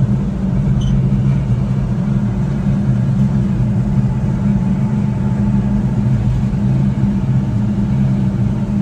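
Honda Acty kei truck's small three-cylinder engine running at a steady speed: a constant low drone that does not rise or fall.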